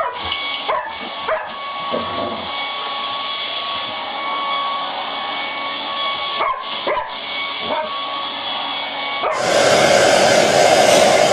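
Hair dryer blowing steadily with a held whine, while a dog barks and yips several times. About nine seconds in, a louder rush of air takes over.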